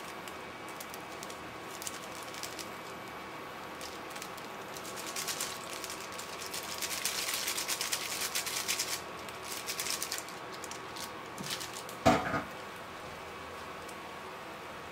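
Foil seasoning sachets crinkling as they are torn, shaken and squeezed out over instant noodles in a pan, a dense crackly rustling from about five to ten seconds in. A single sharp knock about twelve seconds in, over a faint steady hum.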